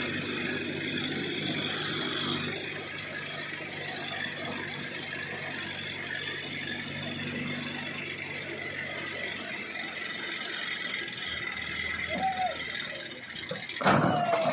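A crane's engine runs steadily under load while it hoists an overturned lorry, with mechanical rattling. The engine hum drops away about two-thirds of the way through, and there is a sudden loud clunk near the end.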